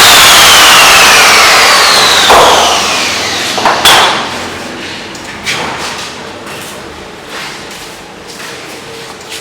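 A power tool's motor spinning down after being switched off, its whine falling in pitch over about three seconds as the noise fades. Then a few scattered hammer knocks, the loudest about two and four seconds in.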